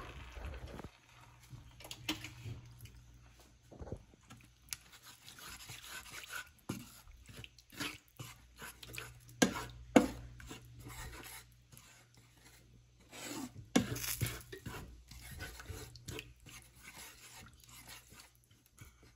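Wooden spatula stirring and scraping a watery tomato masala in a frying pan, with scattered knocks and taps of the spatula against the pan.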